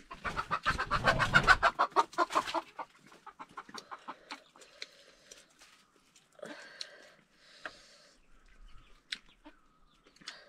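A chicken clucking: a rapid, loud run of clucks for about the first three seconds, then scattered softer clucks and clicks.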